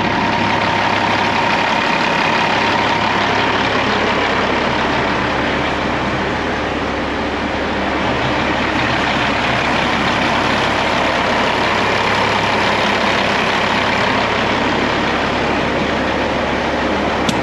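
Heavy truck's diesel engine running steadily: a low even hum under a loud constant rush of noise, cutting in abruptly.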